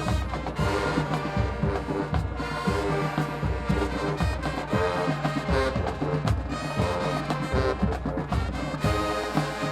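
High school show-style marching band playing: brass horns, trombones and trumpets, over a steady, driving drum beat.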